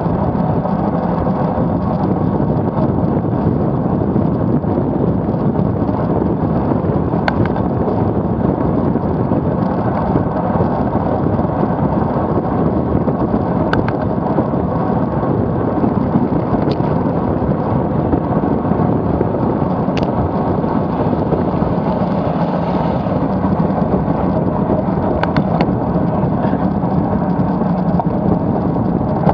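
Wind rushing over the microphone of a camera mounted on a road bike riding at about 35 to 47 km/h, a loud steady rumble. A few brief sharp clicks stand out now and then.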